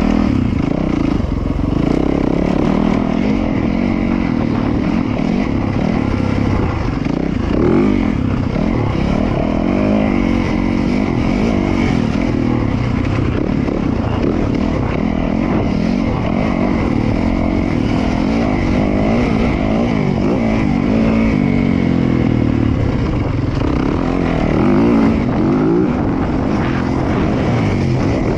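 Dirt bike engine running under load as it is ridden, the revs rising and falling continually.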